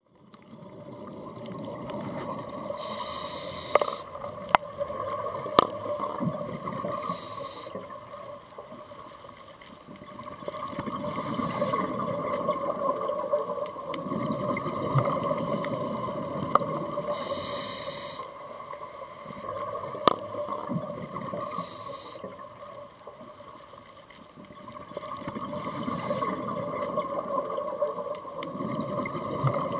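Water sounds that swell and fade in slow waves every several seconds, with scattered sharp clicks.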